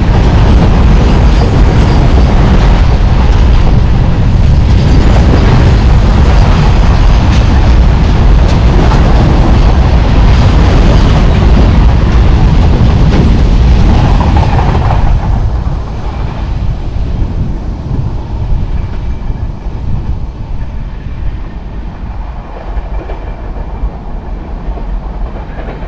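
Freight train of covered wagons passing at speed: a loud, steady rumble and clatter of wheels on the rails that drops off sharply about fifteen seconds in as the last wagon goes by, then fades as the train draws away.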